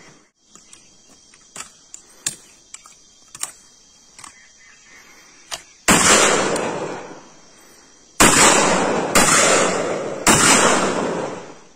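Four gunshots from long guns fired into the air, each followed by a rolling echo lasting about a second. The first comes about six seconds in, and the other three follow about a second apart near the end. Before them come a few faint, sharp cracks.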